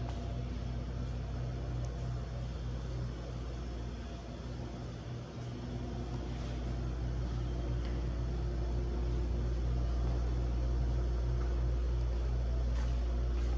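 Steady low mechanical hum with several held tones, growing louder about six seconds in.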